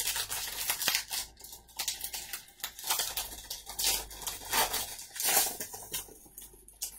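Baseball card pack wrapper being torn open and crinkled, and the cards rustling as they are handled: an irregular string of short tearing and rustling sounds.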